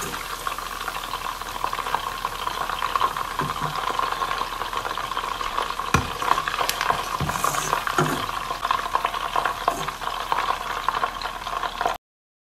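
Chicken pieces deep-frying in hot oil: a steady sizzle and bubbling, with a few sharp clinks of a metal slotted spoon against the pan. The sound cuts off suddenly near the end.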